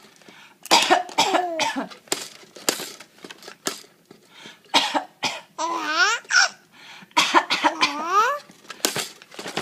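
A series of short, sharp coughs, broken by two high-pitched vocal squeals that rise in pitch, one about six seconds in and another about eight seconds in.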